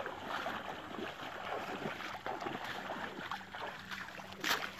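Legs wading through shallow water: irregular sloshing and splashing, with one louder splash near the end.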